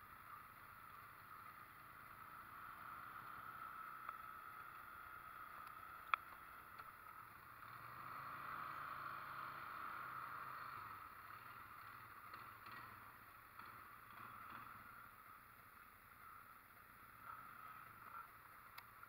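Faint, steady mechanical hum of an ATV running, swelling for a few seconds in the middle, with one sharp click about six seconds in.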